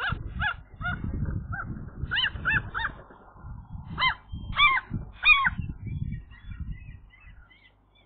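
Gull giving a series of short, harsh, honking calls from its nest, in annoyance at a young magpie pulling its tail; the loudest calls come about four to five seconds in. Rustling and knocks of wings and nest material run beneath the calls.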